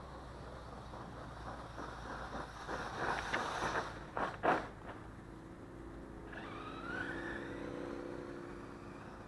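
A 1/8-scale brushless electric RC monster truck driving over a gravel track. Tyres crunch and clatter on the stones, building to the loudest clatter about four and a half seconds in, then the motor's whine carries on with a brief rise in pitch.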